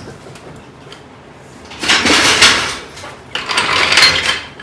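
Floor jack and jack stands as a car body is lowered off the stands: two noisy bursts of metal scraping and clatter, each about a second long, the second with faint high squeaks.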